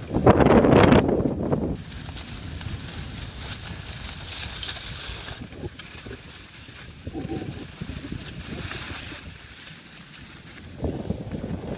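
Skis hissing and scraping over snow on a downhill run, with wind buffeting the microphone. A loud gust of wind noise comes in the first second or so, the hiss of the skis holds steady until about five seconds in, then it all goes quieter with scattered gusts.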